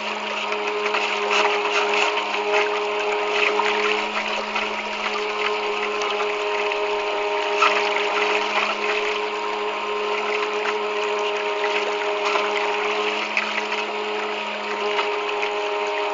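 Homemade bait boat's motor running with a steady whine, with water rushing and splashing around the hull, heard close up from a camera mounted on the boat.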